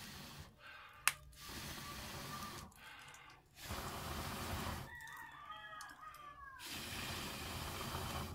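Wood fire burning under a cooking pot: a steady hiss with a sharp pop about a second in, in several stretches that stop and start abruptly.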